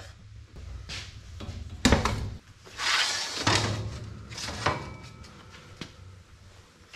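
Rustling and handling noises with a few sharp knocks and clunks, the loudest about two seconds in, as protective gear is put on and a circular saw is set on a thin steel sheet. The saw is not yet running.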